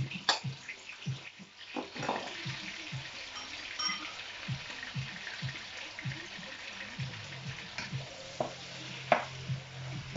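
Food sizzling in a hot frying pan, a steady hiss broken by a few sharp knocks of a utensil against the pan as it is stirred.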